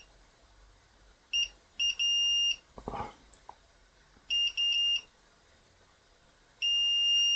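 Multimeter continuity-test beeper sounding in one high tone, on and off: short beeps and a longer one as the probes make and break contact, three quick beeps around the middle, then one long steady beep near the end that signals an unbroken connection across the freshly soldered joint. A light knock between the beeps.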